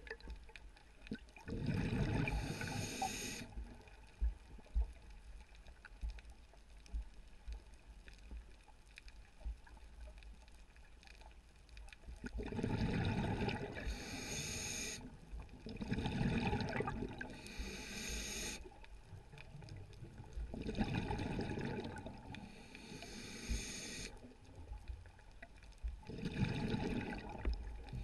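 Scuba diver breathing through a regulator underwater: about five breaths, each a burst of hissing and bubbling exhaust gurgle, with quieter gaps between them.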